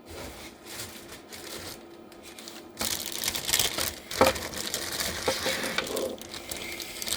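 Rustling and crinkling with a few sharp clicks as the replacement cable and small parts are handled, starting about three seconds in.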